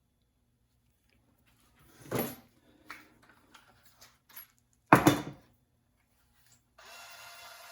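Tools and small metal hardware being handled: scattered clicks and knocks, the loudest a sharp knock about five seconds in. Near the end a steady whirring hum starts.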